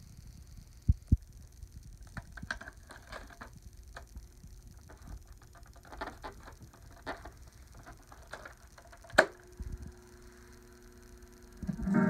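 An 8-track tape cartridge is pushed into the slot of an RCA Mark 8 Stereo 8-track player: two low thumps about a second in, then scattered plastic clicks and scrapes as it slides in, and one loud sharp click about nine seconds in as it seats. A steady low hum follows from the player, and music from the tape starts just before the end.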